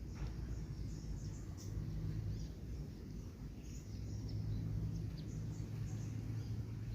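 Outdoor background noise: scattered short, high chirps of small birds over a steady low hum.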